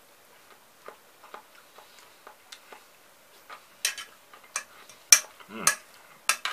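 A metal spoon scooping and clinking in an enamel pot of sliced cucumber salad, with the crunch of eating. Scattered soft clicks at first, then several sharp, louder clinks in the second half.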